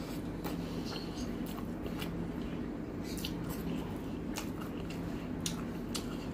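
A person chewing a mouthful of rice and curry, with scattered wet clicks and smacks from the mouth, over a steady low hum.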